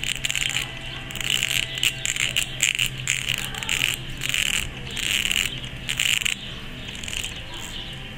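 Fingernails tapping and clicking in quick runs, each run of clicks lasting about half a second and coming about once a second, fading out near the end.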